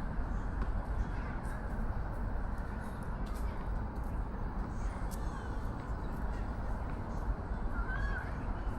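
Outdoor park ambience: a steady low background hum with faint distant voices, and a short bird call about eight seconds in.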